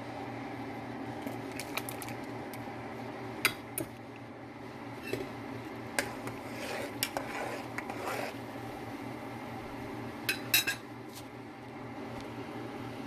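Metal spoon clinking and scraping against a metal pot of milk as it is stirred: scattered sharp clinks, the loudest cluster about ten seconds in. A steady hum runs underneath.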